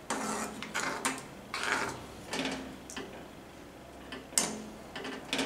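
Metal spoon scraping and clinking against a metal kadhai as a thin curry gravy is stirred, in irregular strokes with a sharper knock about four seconds in.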